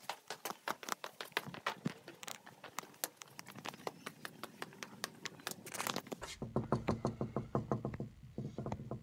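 Quick footsteps and small clicks on hard stone and tile floors. From about six seconds in, soft background music with a steady beat comes in.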